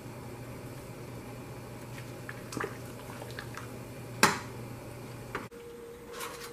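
A metal spoon stirring seasoning into a pot of simmering seafood-boil broth: a few light scrapes and clinks, then one sharp knock of the spoon against the pot about four seconds in. Under it are the bubbling broth and a steady hum, which changes to a different faint hum near the end.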